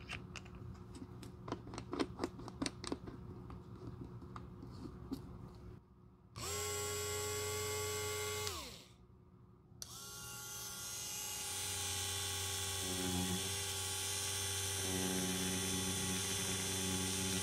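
Sharp clicks as a sanding drum bit is fitted and tightened into the chuck of a small handheld rotary sander. Then the sander runs with a steady whine for a couple of seconds, falls in pitch as it spins down, and starts up again. In its second run the whine holds steady, its tone shifting as the spinning sanding drum grinds the old edge coat off a wallet's edge.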